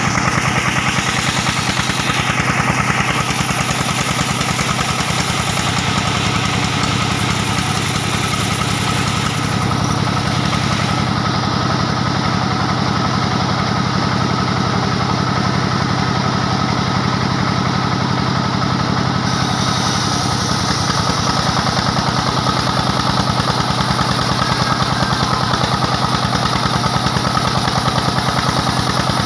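Diesel engine of a band sawmill running steadily with a fast, even beat.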